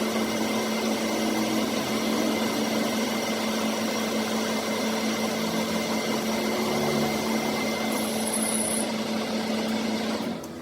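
An electric power tool running steadily with a constant hum, then cutting off suddenly just before the end.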